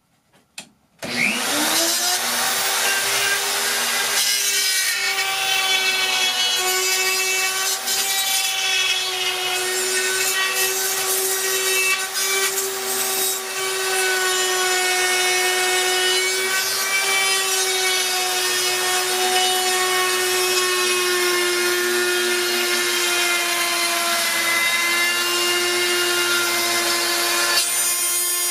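RotoZip spiral saw starting up about a second in with a rising whine, then running steadily as its guide point bit cuts through ceiling drywall, tracing around a bathroom fan housing, with a hiss from the cut.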